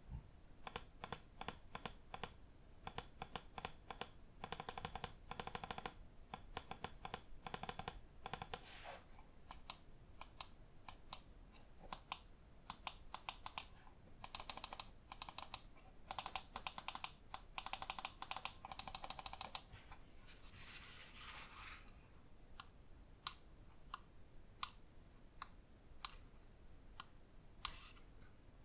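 Lamzu Inca gaming mouse buttons clicking: sharp single clicks alternating with fast runs of repeated clicks. Around twenty seconds in there is a short stretch of dense, finer ticking.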